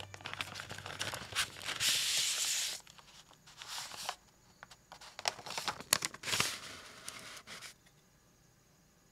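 Thin paper wrapping rustling and crinkling in several bursts, with a few sharp clicks, as it is handled and slid off a keyboard plate and circuit board; it stops about three-quarters of the way in.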